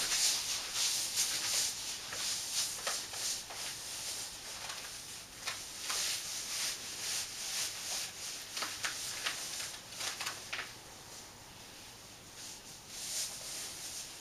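A shiny PVC dress rustling and rubbing against itself as the wearer moves, a run of irregular soft swishes and rasps over a faint hiss. The swishes thin out and grow quieter after about ten seconds.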